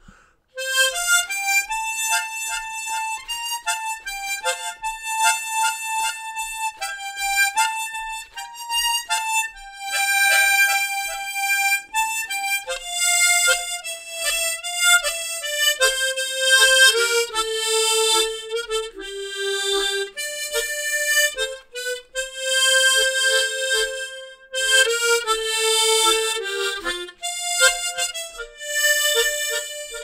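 Harmonica in the key of F playing a slow Korean ballad melody, with bass chords put in just after the beats, as marked in the score. It starts about half a second in and runs in phrases with short breaks between them.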